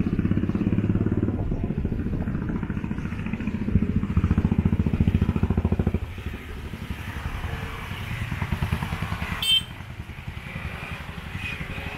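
A small engine running close by with a rapid pulsing rumble, loudest about four to six seconds in and then dropping away sharply to a fainter running sound. A single sharp click comes near the end.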